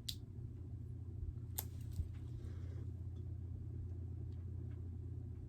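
Two sharp clicks about a second and a half apart from handling a small skincare balm container, with a faint rustle, over a steady low hum.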